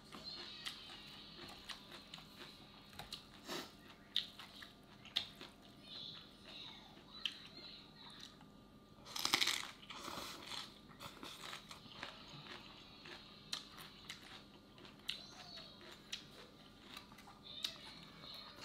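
Eating sounds: crunching and chewing of raw salad greens and vegetables, with many short sharp crunches, and a louder slurp of noodles about nine seconds in.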